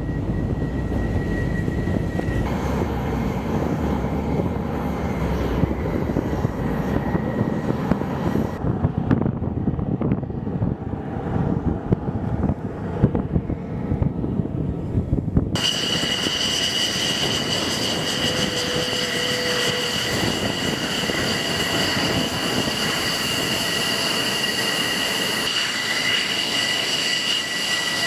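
F-16 fighter jet engines running as the jets taxi, a low rumble for the first half. About halfway through it changes abruptly to a steady high-pitched turbine whine with several tones.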